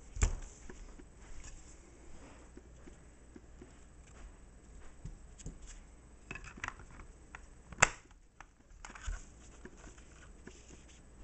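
Small plastic transistor-radio case being handled and fitted together: scattered clicks and taps, with the loudest sharp snap about eight seconds in as the back cover is pushed shut.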